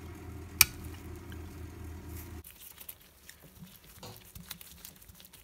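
A low steady hum for about the first two and a half seconds, with one sharp metallic click near the start, then faint ticks and scrapes of hand tools on the lathe apron's cast-iron parts.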